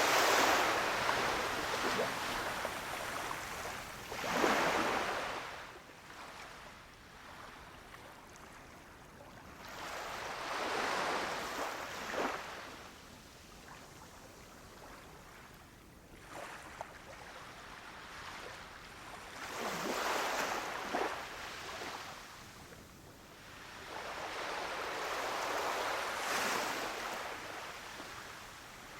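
Small waves breaking and washing up a beach, each swell of surf rising and falling away every few seconds.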